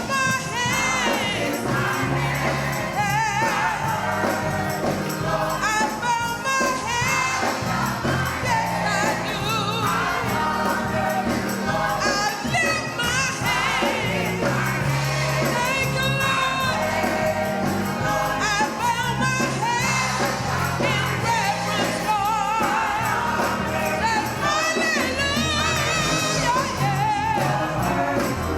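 Gospel choir singing with instrumental accompaniment over a steady bass line.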